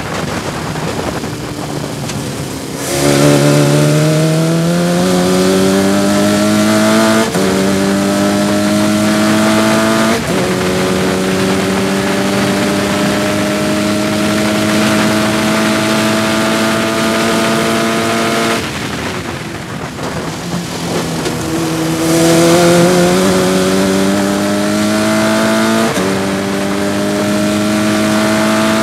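Sports 2000 racing car's engine heard onboard: off the throttle under braking at first, then at full throttle revving up through the gears, with upshifts about seven and ten seconds in, held at high revs on the straight. Around eighteen seconds it lifts off for a corner, then accelerates hard again with another upshift near the end.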